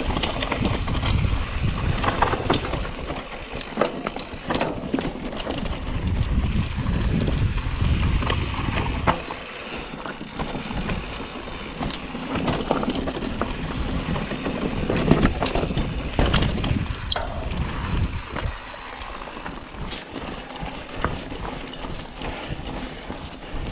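Canfield mountain bike ridden over a dirt and gravel trail: tyres crunching and rumbling over the ground, with frequent clicks and knocks as the bike rattles over stones. Louder in the first half, quieter in the last few seconds.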